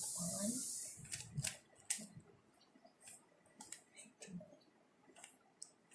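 A plastic 3x3 Rubik's cube being turned by hand: a run of quick, irregular clicks and clacks as its layers snap round while a solving move sequence is done. A brief hiss fills the first second.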